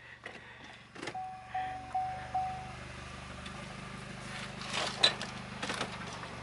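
A click, then a car's warning chime beeping four times in a row at one steady pitch; after that a steady low engine hum runs with a few knocks, the loudest about five seconds in.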